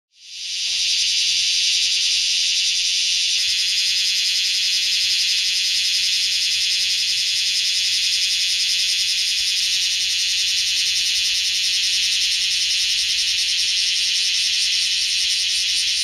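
Cicadas singing: a loud, steady, high buzz that fades in over the first second.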